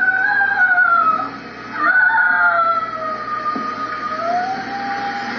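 A high siren-like wail, gliding slowly up and down in pitch in long sweeps, with a brief break about a second in.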